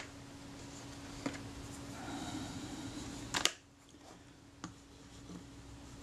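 Soft rubbing of a solvent-dampened cloth on a camera's leatherette, with a few sharp clicks and taps as the metal camera body is handled, the loudest about three and a half seconds in.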